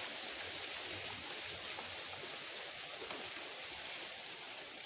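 Steady outdoor hiss, like running water or rain, with a few faint clicks and taps.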